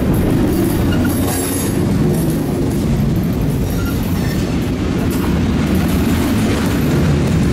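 Covered hopper cars of a freight train rolling past close by: a steady, loud rumble and clatter of steel wheels on the rails.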